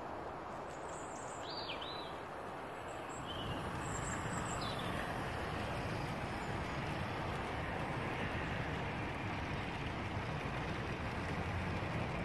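Bachmann OO gauge model Class 150 train with tank wagons running along the track, a steady rolling rumble that grows louder about four seconds in as the train comes close and passes. Birds chirp a few times in the first seconds.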